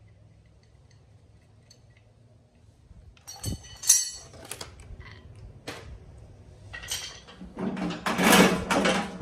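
Quiet for about three seconds, then metal clinks and one sharp clank. Near the end comes a longer, louder run of metal rattling and scraping as the steel mower deck of a John Deere 111 lawn tractor is worked loose from under the tractor.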